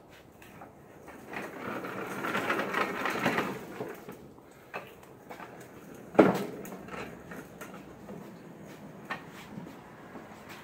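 Caster wheels of homemade wooden dollies rolling and rattling over a paved driveway under a steel V-plow blade being pushed, loudest for a couple of seconds early on, then one sharp knock about six seconds in and a few light clicks.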